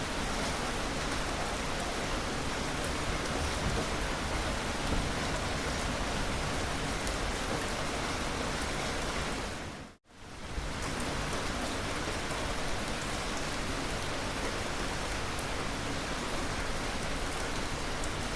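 Steady rain falling, an even dense hiss with no thunder. About ten seconds in it fades out briefly to silence and comes straight back.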